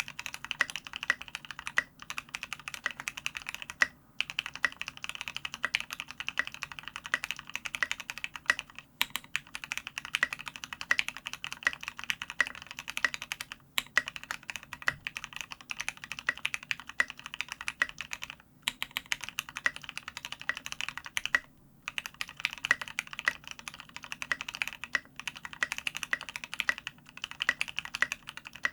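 Fast, continuous typing on an F1-8X custom mechanical keyboard fitted with SA-profile ABS keycaps (SA Oblivion), an aluminum plate and lubed, filmed Gateron Ink Black linear switches, broken by several short pauses.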